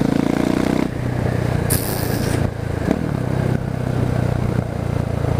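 Husqvarna 701 Supermoto's single-cylinder engine running loud, its pitch dropping about a second in as revs fall, then pulling steadily at lower revs. A brief hiss sounds about two seconds in.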